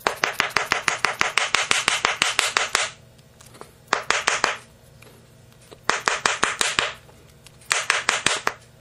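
Rapid rubbing strokes from hands working a 12-gauge shotgun shell during reloading, about seven strokes a second, in four bursts with short pauses between; a bit noisy.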